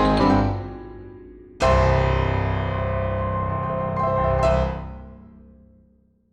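Piano music: a chord struck about a second and a half in rings on, with a brief lift near the end, then dies away to nothing.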